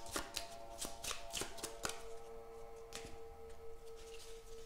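Tarot cards being handled in the hands, a run of light papery flicks and clicks, most frequent in the first couple of seconds. Soft background music plays under it, with a held note coming in about a third of the way through.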